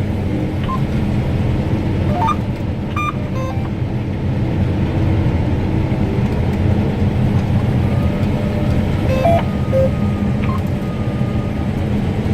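John Deere S680 combine running steadily under load while harvesting wheat, a continuous low drone heard from inside the cab.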